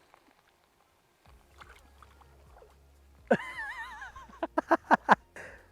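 A dog whines briefly in a high, wavering tone, followed by several short sharp clicks.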